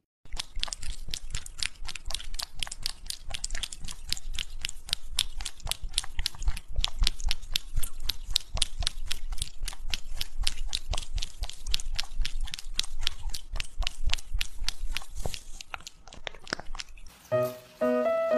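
A cat licking a squeeze-tube treat: a rapid, steady run of sharp wet licking clicks that stops about three-quarters of the way in. Music with plucked notes comes in near the end.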